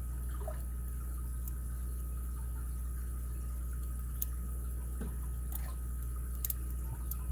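Faint ticks and scrapes of a lock pick working the pin stack of an ABUS 83CS/55 padlock under light tension. There is a few sharp clicks about four seconds in and again twice near the end, over a steady low hum.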